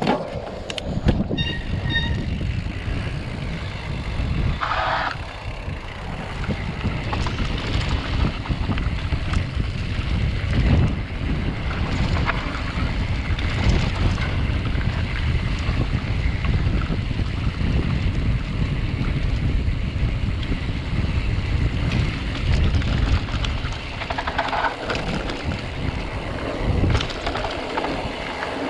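Wind buffeting the action camera's microphone over the rumble and rattle of a full-suspension mountain bike rolling down a bumpy dirt trail. Frequent knocks come from the tyres and frame hitting bumps.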